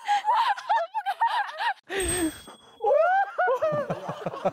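People laughing, with high-pitched giggles and squeals. About two seconds in there is a brief low thump with a thin steady tone, then more pulsing laughter.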